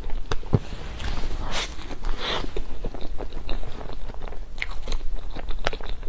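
Close-miked chewing of a mouthful of soft strawberry cream roll cake: wet, sticky mouth sounds broken by many small clicks.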